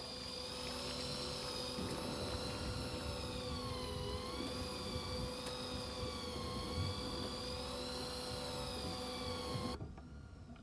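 A motor whining steadily, its pitch wavering slowly up and down over a low rumble, then cutting off suddenly near the end.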